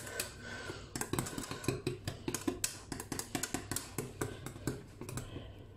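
Wire whisk stirring thick chocolate custard in a stainless steel saucepan, its wires knocking against the pan in a quick run of light clicks, about four or five a second, stopping near the end.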